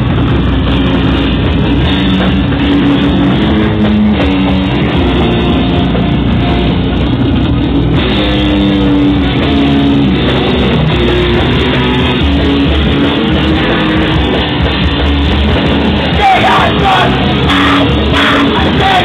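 Live punk band playing loud: distorted electric guitar, bass and drum kit. Shouted vocals come in about sixteen seconds in.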